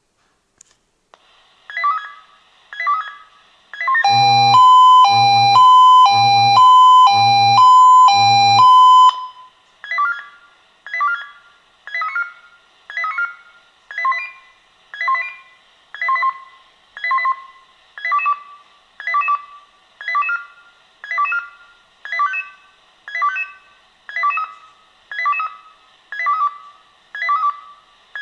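Swissphone Quattro 96 pager sounding its monthly test alarm. It starts with a few short ringing beeps. Then comes a loud steady two-tone call, alternating about every half second between two close pitches (the pager's standard A and B tones) for about five seconds. After that it settles into ringing beeps about once a second.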